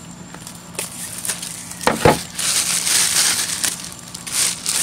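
Clear plastic shrink-wrap being peeled off a cardboard box, crinkling and crackling, with a couple of sharp crackles about two seconds in and a longer rustle after.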